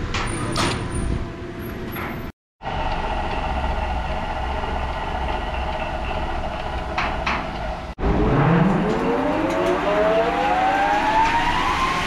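Large horizontal band sawmill running with a steady hum. After an abrupt break, its drive spins up with a whine that rises steadily in pitch for about four seconds as the blade comes up to speed.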